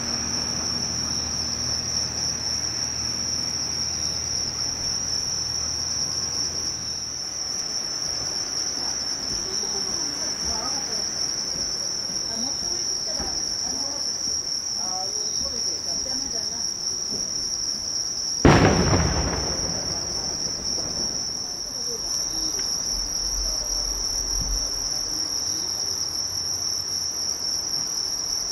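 Steady high-pitched chorus of night insects, with one loud firework burst going off about eighteen seconds in and dying away. A low hum stops about seven seconds in.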